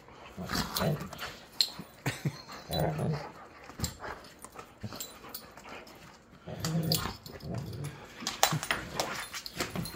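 Two Labrador retrievers play-fighting, growling in several short bouts, with short clicks and knocks of scuffling in between.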